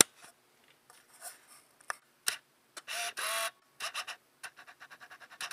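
Camera lens autofocus hunting: scattered small mechanical clicks, a short whir about three seconds in, and a quick run of clicks near the end.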